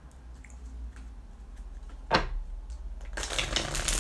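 A deck of tarot cards being shuffled: a single sharp tap about two seconds in, then a dense, rapid rustle of cards from about three seconds in.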